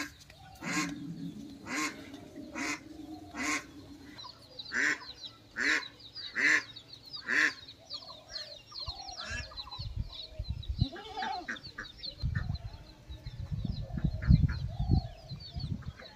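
A bird calling over and over, loud honk-like calls a little under a second apart for about seven seconds, with small birds chirping steadily behind. A low rumble comes and goes in the last few seconds.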